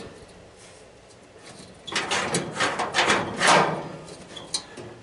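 Sheet-metal panels of a scrapped appliance housing scraping and clanking together as they are handled, loudest from about two to four seconds in, with a sharp click near the end.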